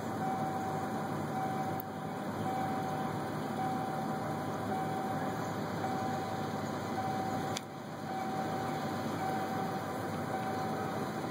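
A pickup truck's engine idling steadily, with a steady high tone over it.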